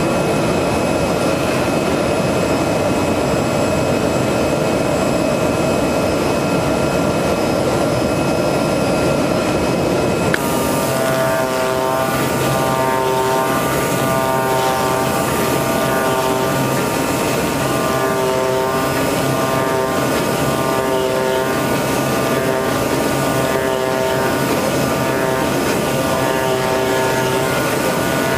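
CNC oscillating-knife foam cutting machine with a pneumatic knife head, running steadily as it cuts EPE foam. From about ten seconds in, a set of tones comes and goes in a regular rhythm a little faster than once a second over the steady machine noise.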